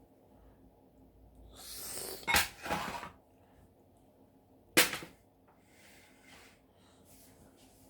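Kitchen handling noises: a rustle with a sharp click in it about two seconds in, then another single sharp click or knock a couple of seconds later, followed by faint rustling.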